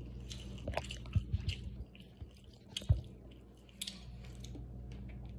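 A person chewing food with moist, crackly mouth sounds, and a few dull knocks about a second in and again near three seconds, over a steady low room hum.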